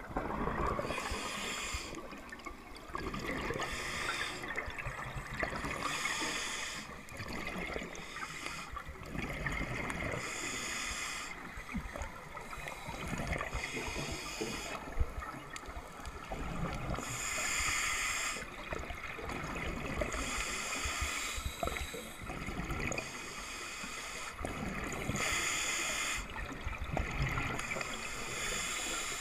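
Scuba diver breathing through a regulator underwater: exhaled air bubbles rush and gurgle out in repeated bursts about every two to three seconds, over a steady low underwater rumble.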